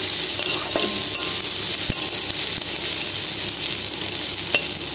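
Chopped onions and cumin seeds sizzling in hot oil in a metal kadai, with a steady hiss. A metal spatula stirs them, scraping and tapping the pan a few times.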